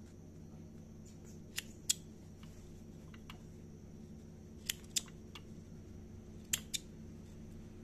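Scissors snipping a freshly sewn buttonhole open and trimming its threads: three quick pairs of sharp clicks spread across the few seconds.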